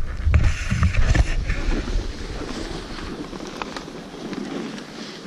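Wind buffeting a GoPro's microphone, a low rumble for the first two seconds that eases into a fainter, steady hiss, with a few light ticks.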